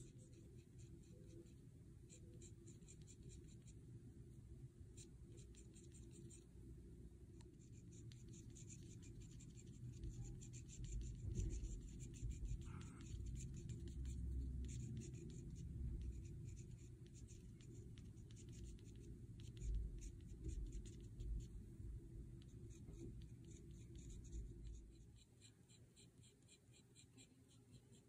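Fountain pen nib scratching across paper in quick, dense hatching strokes, many short scratches a second with a brief pause a few seconds in. A low rumble runs underneath, swelling in the middle and dropping near the end.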